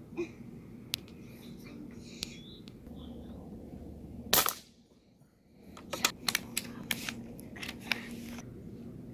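A single shot from a Benjamin Fortitude PCP air rifle about four seconds in, followed a second or two later by a quick run of sharp metallic clicks as the rifle's bolt is worked.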